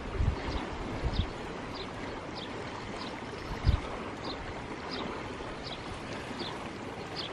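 Steady outdoor noise of wind and water at the shore, with a low bump about halfway through and faint high chirps repeating every half-second or so.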